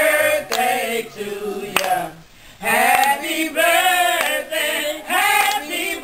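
A small group of adults singing together, with hands clapping along; the singing breaks off briefly about two seconds in, then carries on.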